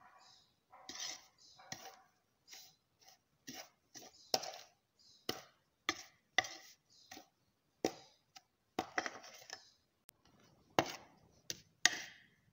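Spoon scooping and stirring ground cardamom powder in a bowl, scraping and knocking against the bowl in an irregular series of short clicks and scrapes. A sharper knock comes near the end.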